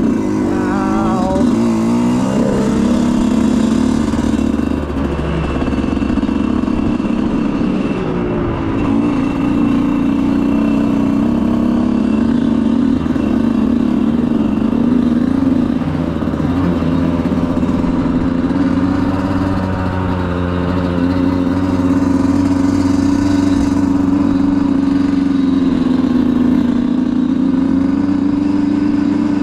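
Dirt bike engine running hard through an enduro test section, its revs rising and falling again and again as the throttle is worked.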